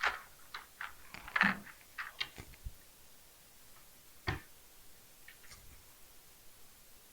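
Small plastic clicks and taps of LEGO Technic pieces being handled and fitted together: a quick run of clicks in the first few seconds, one louder knock about four seconds in, then a few faint ticks.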